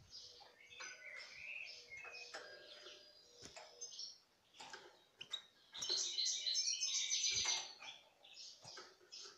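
European goldfinch calling with scattered short chirps, then a louder run of rapid twittering song about six seconds in lasting nearly two seconds. A few light clicks are mixed in.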